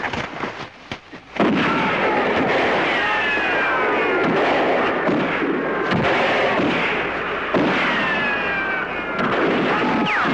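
Heavy rifle gunfire. A few scattered shots come first, then about a second and a half in a dense volley of overlapping shots breaks out and keeps going, with long falling whines twice.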